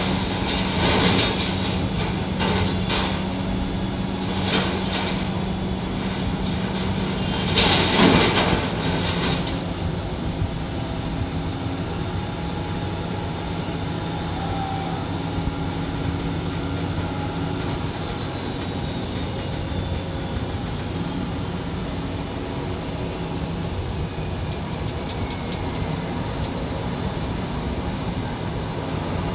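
Sumitomo excavator's diesel engine running steadily while its shear attachment drops cut scrap steel into a steel container, with metal clattering and scraping several times in the first ten seconds, loudest about eight seconds in, then only the engine.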